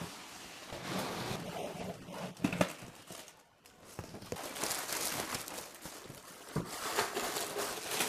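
Unboxing a large cardboard-packed 3D printer: the shipping box is tipped over and lifted off, with cardboard scraping and bumping and a few knocks, then the plastic bag and foam packing rustle and crinkle. There is a short lull near the middle.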